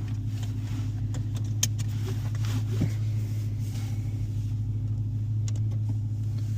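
Dodge Challenger R/T's 5.7-litre HEMI V8 running at a steady, unchanging engine speed, a low even hum, with a few faint clicks.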